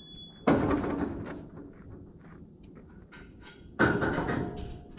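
Two loud bangs about three seconds apart, each starting sharply and dying away over about a second.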